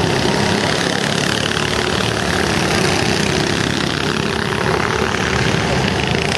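Go-kart engines running steadily as two karts lap the track at speed.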